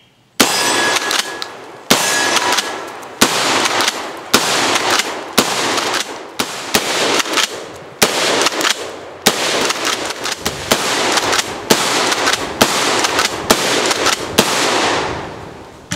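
Kel-Tec KSG 12-gauge pump shotgun fired in a rapid string of about a dozen loud shots, roughly one a second, with the pump action clacking between shots. The last report rings out and fades near the end.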